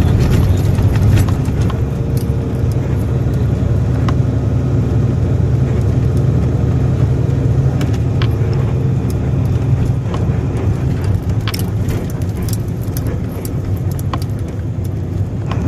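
Steady low engine and road drone of a moving vehicle heard from inside, with small clicks and rattles now and then.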